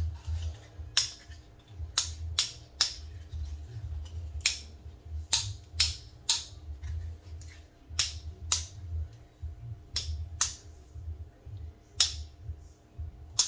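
Sharp metal clicks, about fifteen at irregular intervals, from parts of an AR-15 lower receiver being worked by hand during assembly, over a low steady hum.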